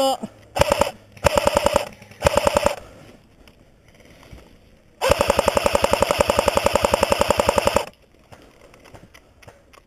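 Cyma AK74M electric airsoft rifle firing on full auto: three short bursts in the first three seconds, then one long burst of nearly three seconds about halfway through, each a rapid, even rattle of shots.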